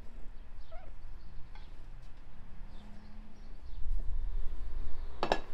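Faint bird chirps, then one short, loud animal call near the end, which is the loudest sound.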